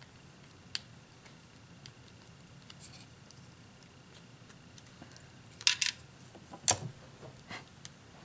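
Small metal clicks and scrapes of a lock being taken apart with a small hand tool. The loudest parts are a brief metallic rattle of several clicks about five and a half seconds in and a single sharp click about a second later.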